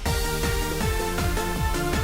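Eurobeat-style electronic background music with a fast, steady kick-drum beat and synth notes.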